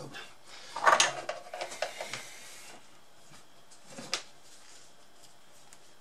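Clatter of hard tools being handled on a workbench as the solder spool and soldering iron are taken up: one loud clatter about a second in, a few lighter clicks after it, and a single knock near four seconds.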